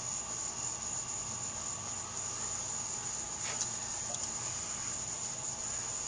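A steady high-pitched insect trill, crickets, with motor oil being poured from a plastic jug into a funnel faintly beneath it and a light tick or two partway through.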